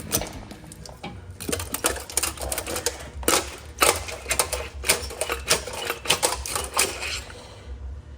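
Irregular sharp metallic clicks and clanks of hand tools on the engine during an LS engine teardown, over a steady low hum. The clicks thin out near the end.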